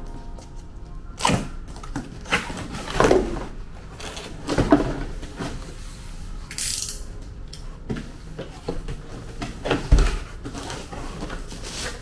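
Cardboard box and packaging being opened and handled: irregular knocks, scrapes and rustles, with a brief hiss a little past the middle.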